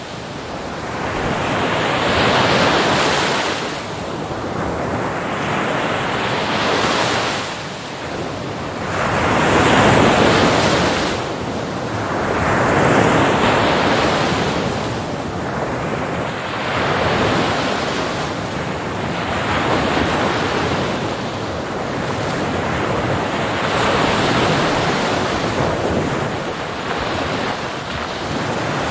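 Ocean waves breaking on a beach, each wash of surf swelling and ebbing every three to four seconds.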